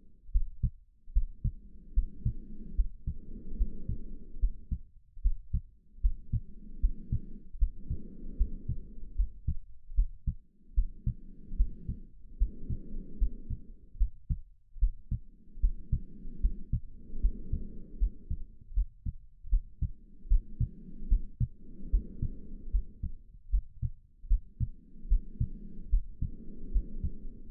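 Human heartbeat thumping steadily in a regular pulse, with slow breathing over it: a soft inhale and exhale about every four to five seconds.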